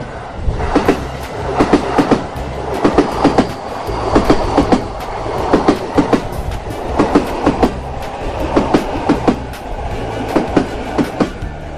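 Train cars rolling along the track: a steady rumble with the clickety-clack of wheels striking the rail joints in regular groups of clicks about once a second.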